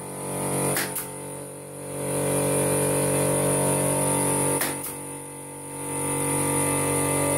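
Portable electric air compressor running with a steady, humming drone, its level dipping twice, with two pairs of sharp clicks about a second and five seconds in.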